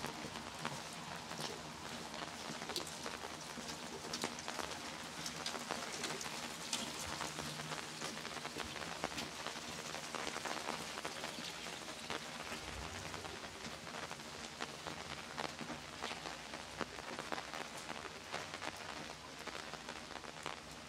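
Steady rain falling on a wet street, with many individual drops ticking sharply over an even hiss.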